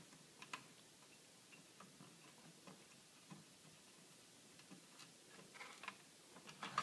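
Quiet, scattered ticks of a screwdriver turning out the last screw that holds a TV's main circuit board, with a few sharper clicks near the end as the loosened board is handled.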